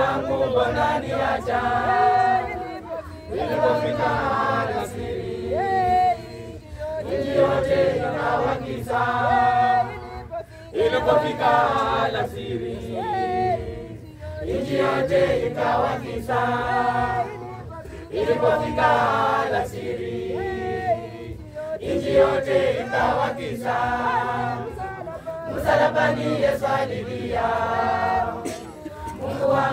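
A large choir of many voices singing a Swahili hymn unaccompanied, in phrases of two to three seconds with short breaks between.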